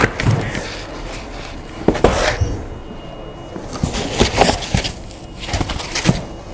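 Cardboard box and packing material being handled, with scattered rustling and a few knocks.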